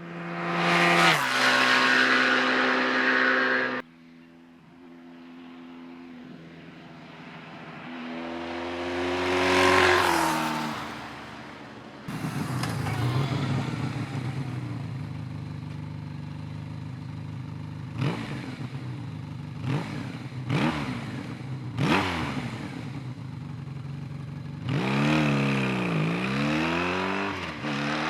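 1986 Honda VF1000F's V4 engine on its stock exhaust, riding past twice with the pitch dropping as it goes by, then running under changing revs with the pitch rising and falling; the sound breaks off abruptly between passes.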